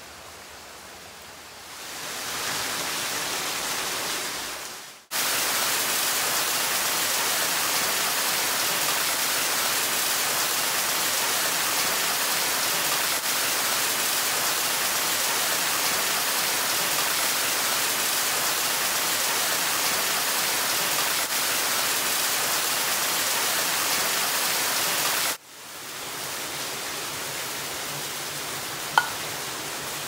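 Rushing water, an even hiss across the whole range. It fades in about two seconds in and breaks off abruptly twice, about five and twenty-five seconds in, with the level stepping up after the first break and a little down after the second. A brief sharp chirp or click comes near the end.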